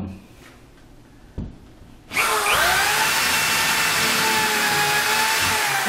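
Power drill with a 7/32-inch bit boring a pilot hole through drywall into a solid wooden wall stud. A single click comes about a second and a half in; about two seconds in the drill starts with a short rising whine, then runs steadily.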